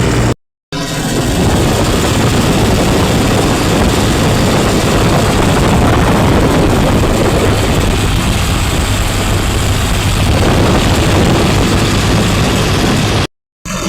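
Excavator's diesel engine running loudly and steadily, with a low hum under dense mechanical noise. The sound drops out to silence twice, briefly, near the start and near the end.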